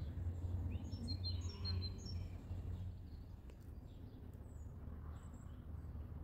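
Small birds chirping in short, high notes, a cluster of them about a second into the sound and a few fainter ones near the end, over a low, steady rumble.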